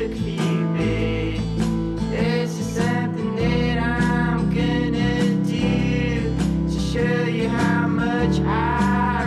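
Background song with acoustic guitar and a singing voice.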